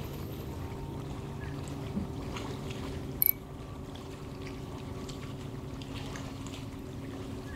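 Steady low hum of a boat's motor running under a light wash of water and air noise. There is a single short, sharp click a little over three seconds in.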